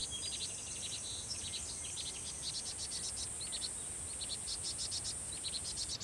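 Insects giving a steady high-pitched buzz, with many short, high chirps scattered over it: summer woodland ambience.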